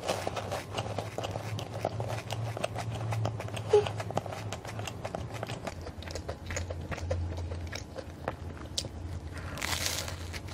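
Close-miked chewing of a flaky olive-and-cheese pastry, the crisp crust crackling in many small clicks, with a fresh crunchy bite into the pastry near the end.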